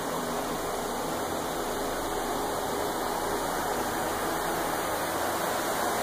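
Steady rushing whoosh with a faint low hum from the greenhouse's circulating fans.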